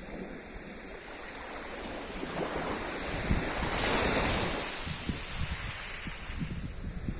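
Sea surf: waves washing onto the shore, swelling to a peak about four seconds in and then falling back.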